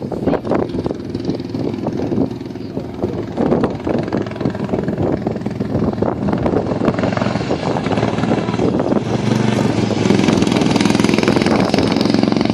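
Briggs & Stratton 12.5 hp lawn-mower engines running hard under racing throttle. Irregular knocks and rattles come through in the first half, and from about nine seconds in a steady, louder engine note takes over.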